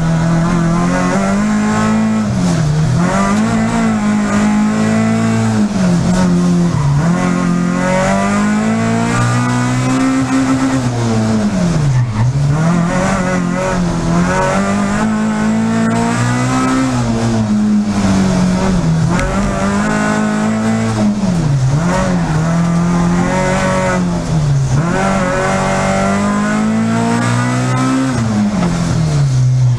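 Peugeot 306 Group A rally car's four-cylinder engine at full race pace, heard from inside the cockpit. It climbs through the revs and drops sharply on each gear change, with slower dips as the car brakes into corners.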